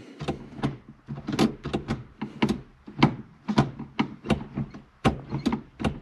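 Newly installed CAE short shifter in a Mitsubishi Lancer Evo being rowed through the gears by hand: a quick run of sharp metal clicks and clunks, about two or three a second, as the lever moves across and into the gates.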